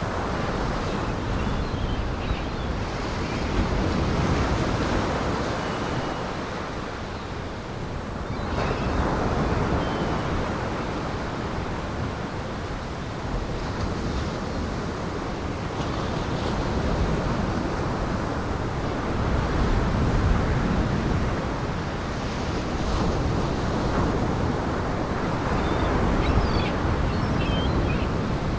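Heavy Lake Michigan surf driven by gale-force wind: waves breaking and washing against the shore in a dense rush that swells and eases every few seconds, with wind in it.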